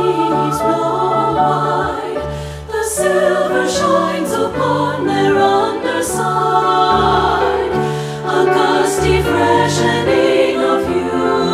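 Women's choir singing in three-part treble (SSA) harmony with piano accompaniment.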